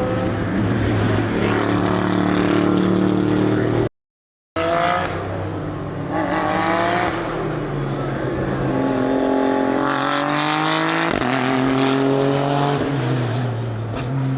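GT3 race car engines running hard on track, rising in pitch again and again as they accelerate up through the gears. The sound cuts out briefly about four seconds in.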